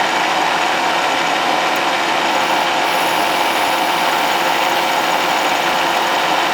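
Power tool running steadily, machining a teflon (PTFE) block into a replacement clutch-damper piece.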